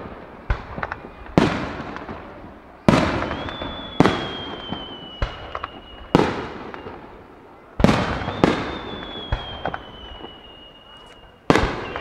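Aerial firework shells bursting: a series of loud booms a second or a few seconds apart, each dying away in an echo, with small pops and crackles between them. Twice a high whistle holds for about three seconds, sinking slightly in pitch.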